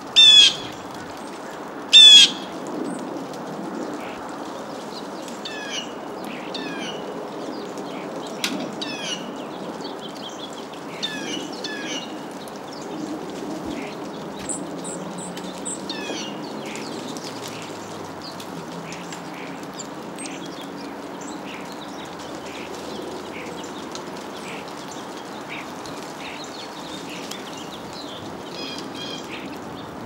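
Backyard songbirds at a feeding ledge calling: two loud, rapid rattling calls about two seconds apart at the start, then scattered short chirps, over a steady low hum.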